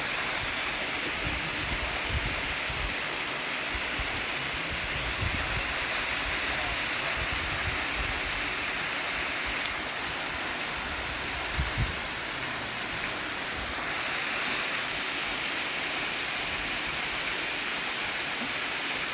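Small waterfall splashing into a pool: a steady, even rush of falling water.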